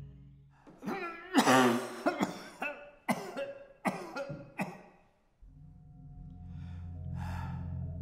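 A fit of about seven harsh coughs from an elderly man, over roughly four seconds. Low droning music comes in after about five seconds.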